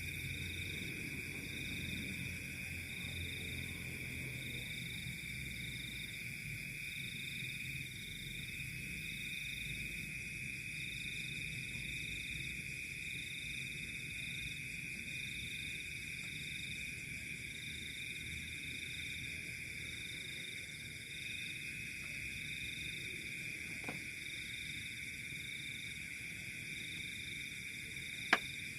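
Night chorus of insects and frogs: a steady high-pitched trill, with a second, higher call pulsing a little more than once a second over it. A single sharp click near the end.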